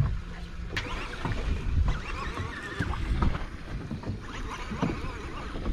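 Water slapping and sloshing against the hull of a boat at sea, with irregular knocks and thin wavering squeaks and creaks.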